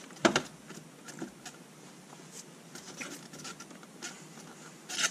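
Handling noise from a taped-together box of acrylic panels being set down and squared up on a cutting mat: a sharp knock about a third of a second in, then faint rustling and light taps, with a short rustle near the end.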